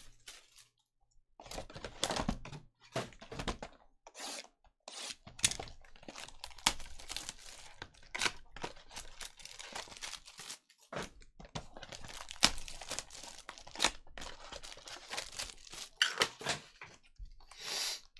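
Bowman Chrome hobby packaging being torn open by hand: a run of irregular rips and crinkles of wrappers, with a longer tear near the end.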